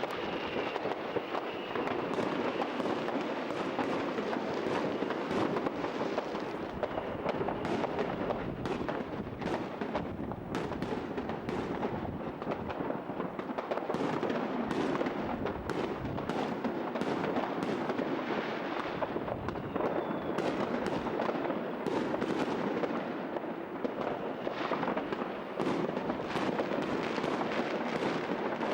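Fireworks display: a dense, continuous run of bangs and crackling, many pops overlapping with no let-up.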